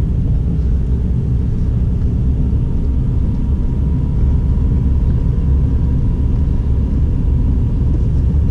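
Steady low rumble of a car driving along a road, engine and tyre noise heard from inside the cabin, with a faint steady whine over it.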